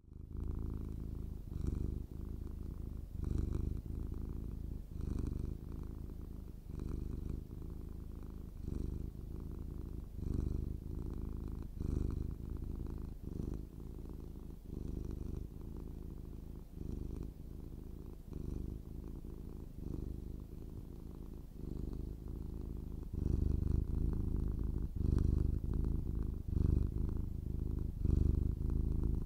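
Domestic cat purring steadily, swelling and fading in even pulses about every one and a half to two seconds, louder near the end.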